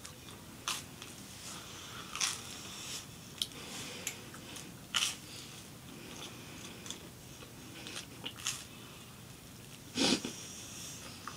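Toast being bitten and chewed close up: short crisp crunches at irregular intervals, a few seconds apart, with the loudest crunch about ten seconds in.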